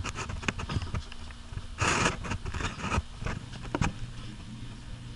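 Handling noise from an action camera pressed against woven wicker: irregular scraping and clicking, loudest in a burst about two seconds in.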